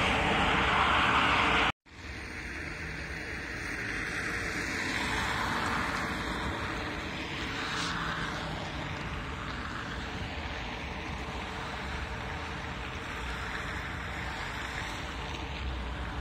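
City street traffic, with cars passing on a wide road. About two seconds in there is an abrupt cut, and after it the traffic noise goes on steadily at a lower level.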